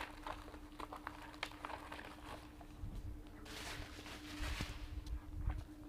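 Packaging being handled and opened: small clicks and taps of a product box, with a burst of rustling and scraping about three and a half seconds in and a few soft thumps near the end.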